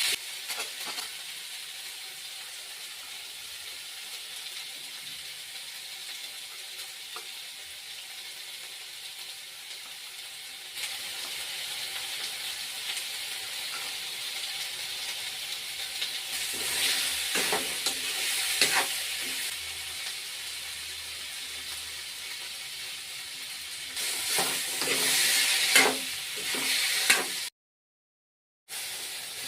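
Potato and drumstick sabji sizzling steadily in hot oil in a pan, with a spatula stirring and scraping in two louder spells, about sixteen and twenty-four seconds in. The sound drops out entirely for about a second near the end.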